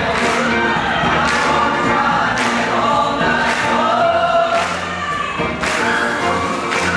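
Male show choir singing in harmony to live band accompaniment, with a steady beat struck about once a second.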